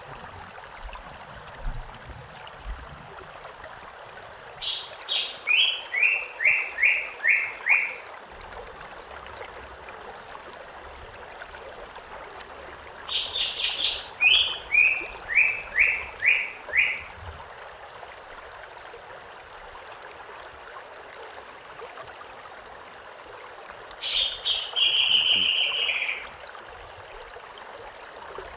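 A songbird singing three times over the steady rush of a stream: each song a run of about eight sharp repeated notes that step down in pitch, the last one shorter and flatter.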